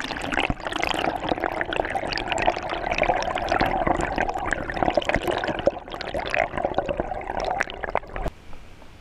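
Water gurgling and bubbling around a submerged camera, with many small crackles and pops, heard from underwater beside an inflatable kayak. It drops away suddenly near the end.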